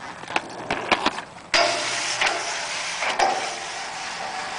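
A few sharp clicks, then from about a second and a half in a sudden, steady rush of inline skate wheels rolling fast over concrete.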